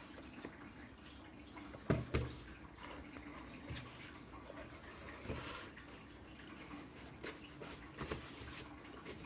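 Handling noise of a Blu-ray slipbox and booklet being slid and set down on a tablecloth: soft rubbing with a few light knocks, the loudest two close together about two seconds in.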